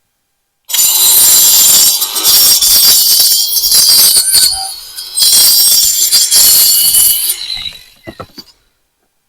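Diablo cutoff wheel cutting through wire hardware cloth: a loud, high-pitched metal screech with a steady whine. It starts about a second in, dips briefly twice, and winds down near the end.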